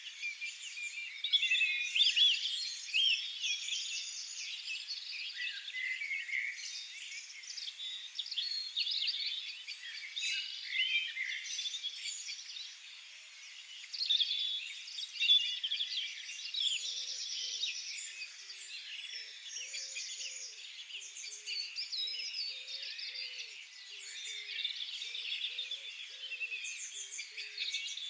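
Several songbirds singing at once, a dense chorus of overlapping chirps and trills. From about halfway through, a low hooting call repeats softly underneath.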